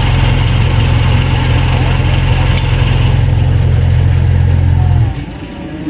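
Tata minibus engine idling: a steady low rumble that stops abruptly about five seconds in.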